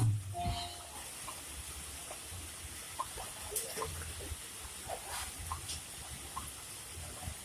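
Faint outdoor ambience of running water, with a steady hiss and scattered small taps and clicks.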